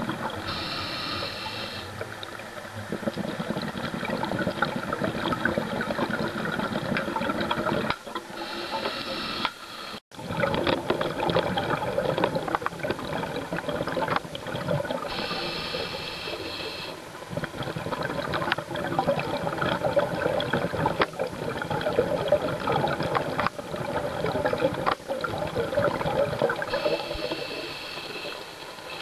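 Scuba diver breathing through a regulator: four short, hissing inhales spaced several seconds apart, each followed by a long bubbling rush of exhaled air.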